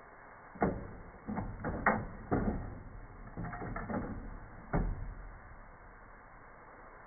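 Auto-reverse mechanism of an Onkyo TA-RW244 cassette deck switching direction: a series of plastic-and-metal clunks and clicks over about four seconds as the tape head and pinch rollers shift, the sharpest near the start and a last clunk near the end. A faint steady hiss runs underneath.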